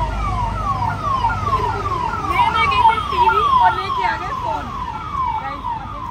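Vehicle siren sounding a fast repeating falling sweep, about two and a half sweeps a second, over low traffic rumble.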